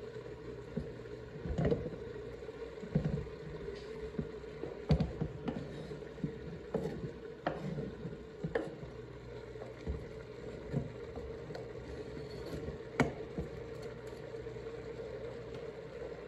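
Diced gold potatoes being scraped off a plastic cutting board with a knife and dropping into a stainless steel stockpot: irregular knocks and thuds about once a second over a steady hum, stopping near the end.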